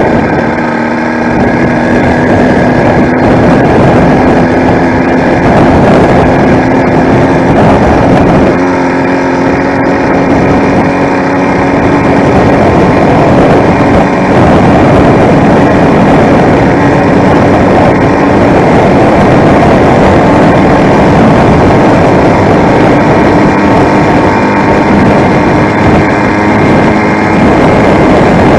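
YD100 two-stroke motorized-bicycle engine running under way on a ride, its pitch holding fairly steady and creeping up slowly.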